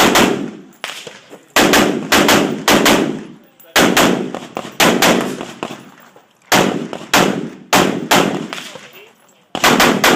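AR-15-style rifle firing .223/5.56 in quick strings of several shots about half a second apart, each shot ringing off briefly, with short pauses of about a second between strings as targets are engaged.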